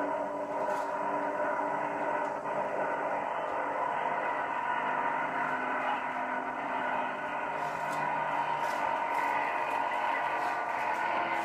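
High-performance powerboat engines running flat out on a speed pass, a steady drone whose pitch shifts slightly as the boats go by.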